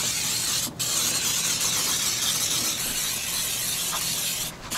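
Aerosol spray can hissing in long, steady bursts, with a short break just under a second in and another near the end.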